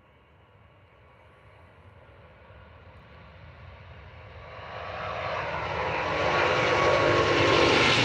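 Airbus A350's Rolls-Royce Trent XWB jet engines at takeoff power, growing steadily from faint to loud as the airliner rolls down the runway and draws nearer.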